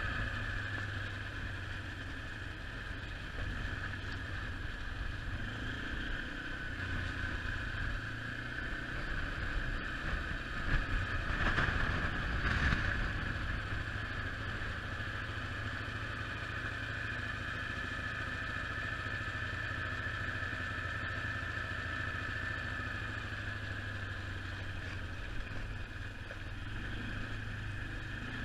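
A quad bike's engine running steadily as the quad is ridden along a road, heard from on board. The sound swells and gets rougher for a couple of seconds about halfway through.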